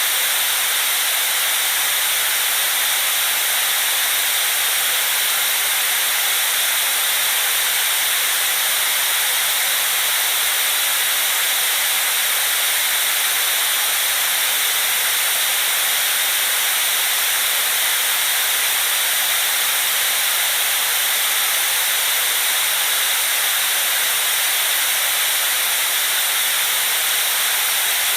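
White noise: a steady, unchanging hiss, strongest in the upper range and thin in the bass.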